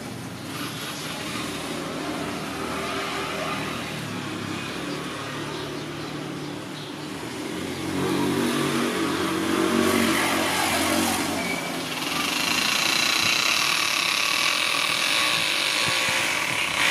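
Motor vehicle engine running, growing louder about halfway through.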